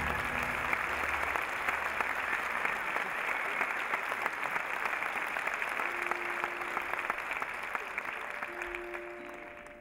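Audience applauding: dense, steady clapping that fades out near the end as a few held music notes come in.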